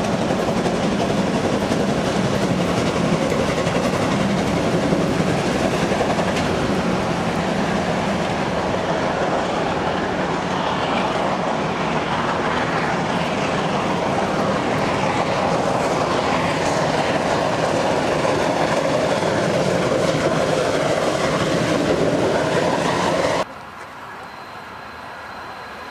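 Steam-hauled passenger train passing close by: the steam locomotive working, then a long rake of coaches rolling past with clattering wheels, a loud steady din. Near the end it cuts abruptly to a much quieter scene with a distant approaching steam locomotive.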